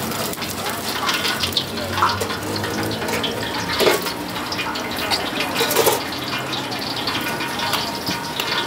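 Deep-frying oil sizzling and crackling in a brass wok, with a few sharp metal clinks from tongs and the wire strainer and rack.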